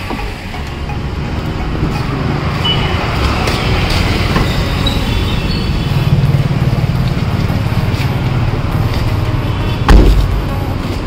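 Steady low vehicle rumble that swells a few seconds in, with one heavy thump near the end.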